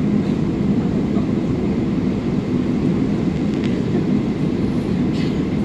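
Steady low rumble inside the cabin of a Boeing 777-300ER taxiing, its GE90-115B engines at low taxi power.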